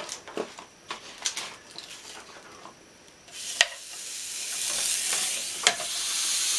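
Beefsteak laid on the preheated plates of a Tefal OptiGrill GC702D electric contact grill, starting to sizzle about three seconds in, the sizzle growing steadily louder. Sharp clicks of metal tongs come before the sizzle starts and during it.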